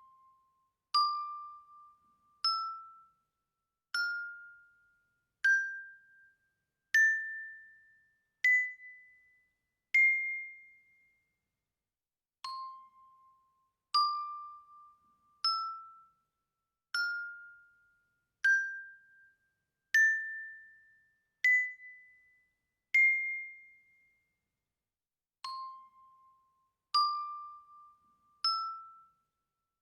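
Single bell notes struck one at a time, about every second and a half, each ringing briefly and fading. They climb an eight-note scale and then start again from the bottom note; the full scale plays twice and begins a third time near the end.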